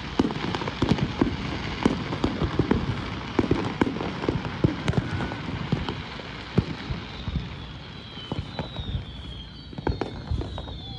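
Fireworks display: a dense run of crackling and popping from bursting shells, thinning out after about six seconds. From about seven seconds in, several high wavering whistles overlap with the remaining pops.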